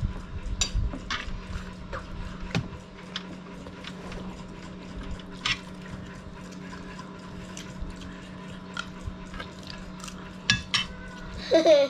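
Metal spoons clinking and scraping on ceramic plates of rice at scattered moments, over a steady low hum. A brief child's vocal sound near the end is the loudest thing.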